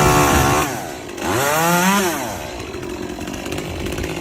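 A small engine, chainsaw-like, revving up and down: it drops about half a second in, climbs to a peak about two seconds in, falls back, and revs up again at the end.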